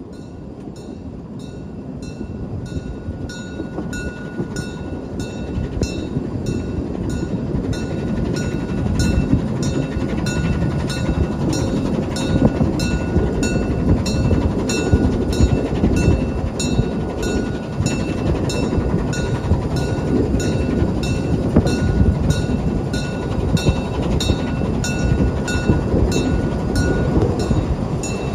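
Saxon VII K narrow-gauge steam tank locomotive hauling its train, its exhaust beating in a steady rhythm over the rumble of wheels on the rails. The sound grows louder through the first ten seconds or so, then holds.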